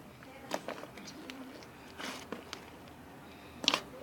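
Slime being handled, giving a few short, sharp wet pops and clicks, with a louder cluster of pops near the end.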